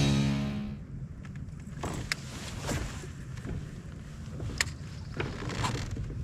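Music fading out in the first second, then a low steady rumble of wind and water around a kayak, with a few sharp clicks about two, four and a half and five and a half seconds in.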